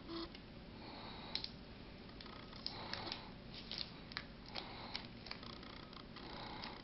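Small irregular clicks and ticks, with a little soft rustling, from fingers handling the plastic nozzle of an aerosol can of Break Free CLP gun lubricant.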